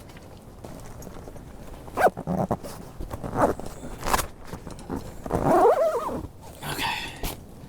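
Ice-fishing gear being handled and set up in a shelter: irregular knocks, rustling and scraping, with sharp knocks from about two seconds in and a louder scrape between five and six seconds.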